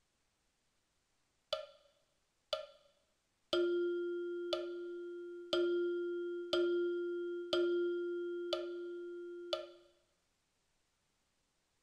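A metronome ticking once a second: two lone count-in ticks, then a single pitched xylophone-style note struck on the beat in the rhythm long, short, short, long (a minim, two crotchets and a minim in two-four time at crotchet = 60). The ticks go on under the note, and the last long note rings across two ticks before fading out.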